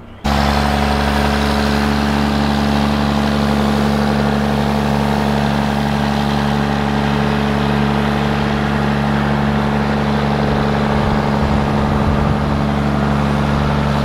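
Diesel engine of a large John Deere four-wheel-drive tractor running steadily as it drives over and packs a silage pile, a constant hum that holds one pitch without revving.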